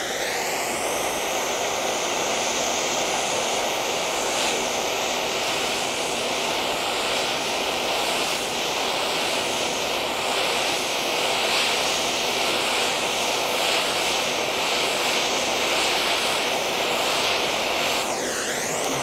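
Hand-held gas blowtorch flame hissing steadily as it heats magnesium turnings on a block of dry ice until they ignite. The tone of the hiss sweeps as the torch moves, near the start and again near the end.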